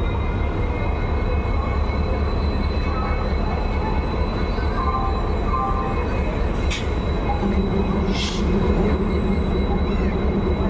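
Railway locomotive running at a standstill with a steady low rumble and a faint high whine. Two short hisses come a little after the middle, and a deeper hum grows louder near the end.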